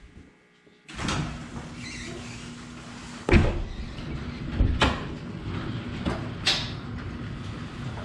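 Sectional overhead garage door opening on its electric opener: a steady drone starts about a second in, and the door clunks sharply several times as it rises, loudest about three seconds in.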